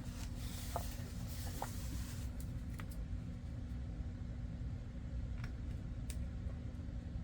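Faint scraping and a few small clicks of a metal staple-removal tool working at a staple in an old comic book's spine, over a steady low hum.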